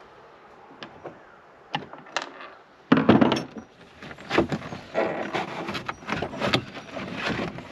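A few light clicks, then about three seconds in a loud run of knocking and rattling as a boat's helm dashboard panel is handled and pulled at to free it from the console.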